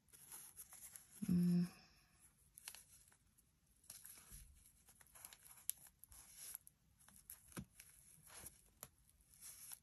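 Paper rustling and crinkling as scrap-paper pieces are pressed and smoothed down by hand on a book page, with scattered light crackles. A short hummed "mm" from a voice about a second in is the loudest sound.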